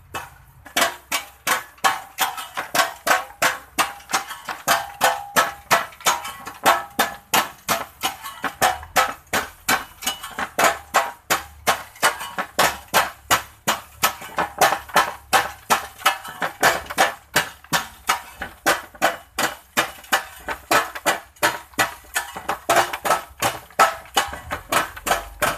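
Two hand hammers striking wire fence mesh laid against a wooden plank, fast overlapping blows about four a second, each with a short metallic ring.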